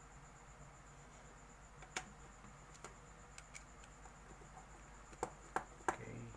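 A few sharp light clicks and taps of small hard parts being handled on a workbench: one about two seconds in, a couple more a second later, and a louder cluster near the end. A steady faint electrical hum with a thin high whine runs under them.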